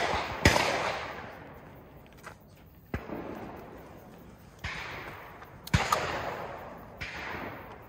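Shotgun shots, five reports each trailing off in a long echo. The loudest come about half a second in and near six seconds; the others are fainter.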